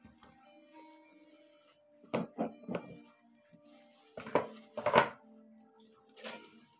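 A ceramic plate knocking and clattering on a table as bread rolls are set on it: three quick knocks about two seconds in, two louder ones a couple of seconds later, and one more near the end. Soft music plays in the background.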